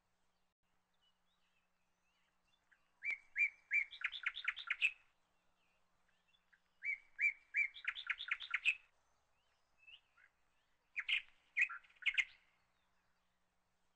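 A bird singing three phrases about four seconds apart, each a few separate notes running into a quick series of higher notes; the last phrase is shorter.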